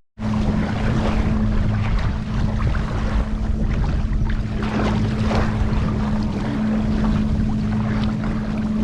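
A small rental boat's motor running at a steady pitch, with water splashing and wind rushing on the microphone.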